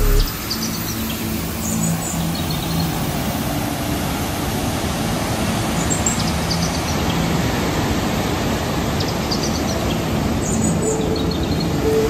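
Steady rushing of a large waterfall and whitewater pouring through a narrow rock gorge, with a few faint bird chirps now and then.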